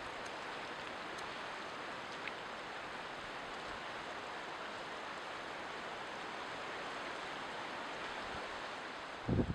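Ocean surf washing steadily, an even rushing noise, with a short low rumble near the end.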